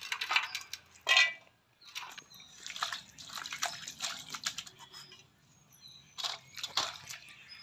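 Water splashing and dripping as mint leaves are swished and rinsed by hand in a steel plate. There are short clattering knocks of ingredients going into a steel mixer jar, with louder bursts about a second in and twice near the end.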